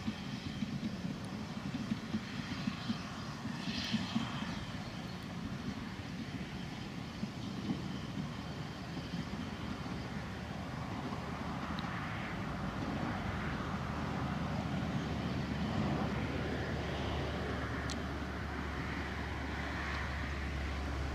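LYD, a replica narrow-gauge Lynton & Barnstaple steam tank engine, working a train away into the distance. A few faint exhaust beats in the first seconds fade into a steady low rumble.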